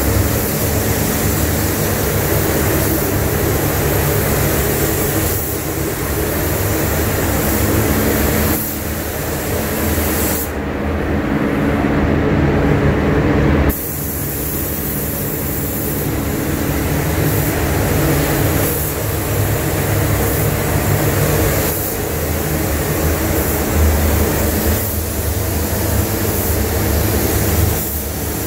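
Paint booth ventilation fans running: a steady loud rush of air with a constant low hum underneath.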